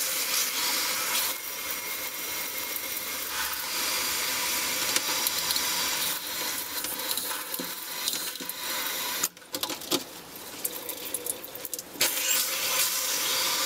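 Water spraying steadily from a newly installed handheld spray shower head as it is test-run, a constant hiss that drops lower for a few seconds from about nine seconds in.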